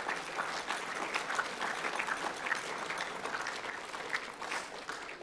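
Audience applauding, a steady clatter of many hands clapping that tapers off near the end.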